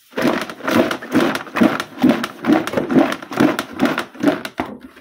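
Green chillies being mixed by hand into salted curd in a plastic bucket: wet squelching, rustling strokes, about two a second, that stop shortly before the end.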